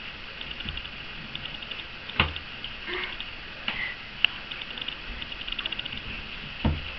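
A toddler knocking and shifting a plastic potty-training seat: two dull thumps, about two seconds in and near the end, with a sharp click between them. Underneath runs a faint steady hiss with a fast, high ticking.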